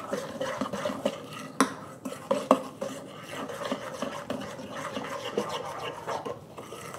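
A metal utensil stirring and scraping a wet, sugary soy-sauce and garlic marinade around a stainless steel mixing bowl: quick, irregular metal-on-metal clinks and scrapes, with a couple of sharper clinks about one and a half and two and a half seconds in.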